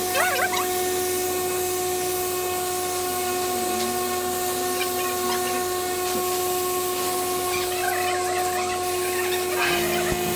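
A power tool running steadily, giving a constant high whine over a hiss.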